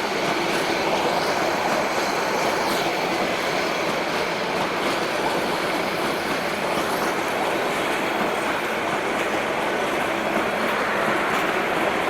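Meter-gauge passenger train rolling past: a steady rumble of wheels on rails with a few faint clicks.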